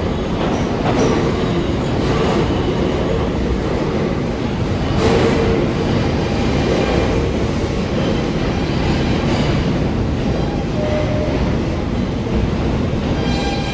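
Subway train running, heard from inside the car: a steady loud rumble of wheels on the rails with light clicks over the rail joints. A brief wheel squeal comes about five seconds in, and a higher whine comes in near the end.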